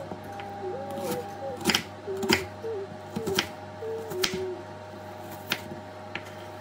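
Chef's knife chopping onion on a wooden cutting board: irregular single knocks about a second apart, the loudest a little before halfway.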